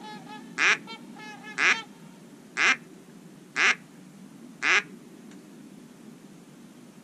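Ducks quacking: a run of quick, softer quacks, then five loud quacks about a second apart.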